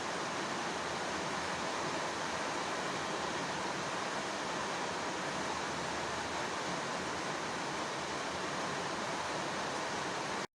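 Soft, steady rain: an even hiss of raindrops falling, which cuts off abruptly near the end.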